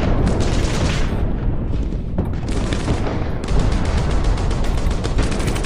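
Airsoft guns firing on full auto: several rapid bursts of clicking shots, the longest about two seconds near the end, over a steady low rumble.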